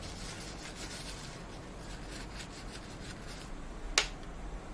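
Paper tissue rubbing in quick repeated strokes, wiping thermal paste off a CPU and its cooler. A single sharp click follows about four seconds in.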